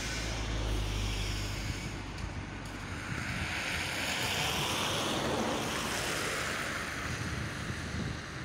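ChME3 shunting locomotive's six-cylinder diesel engine running with a low hum that fades after about a second and a half, followed by a rushing hiss that swells and dies away over several seconds.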